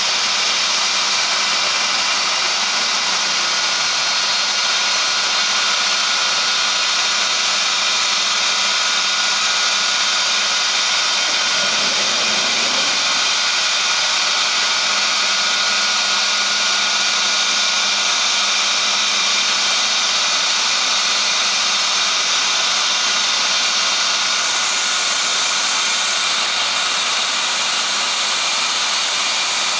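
CNC router's high-speed spindle running steadily as its bit trims the edge of a thermoformed plastic part: a continuous whine over cutting hiss.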